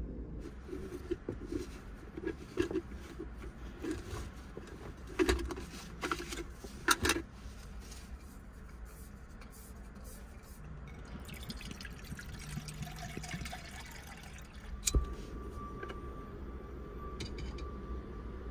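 Camp cooking gear handled inside a small car: a run of knocks and clinks, then water poured into a pot or bowl. About fifteen seconds in there is a single sharp click, followed by a faint steady tone.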